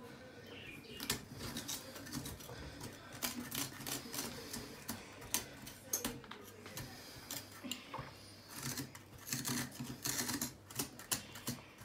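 Quiet, irregular clicking and scraping of a hand tool gouging out the flesh of a black radish, hollowing a cavity inside it.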